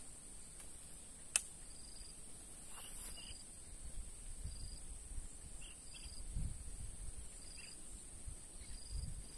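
Steady high-pitched insect chirring, with a short high pip repeating about once a second. A single sharp click comes about a second and a half in.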